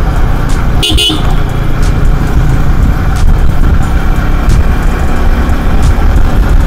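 Road traffic heard from a moving motorcycle: a steady, loud low rumble, with a short vehicle horn toot about a second in.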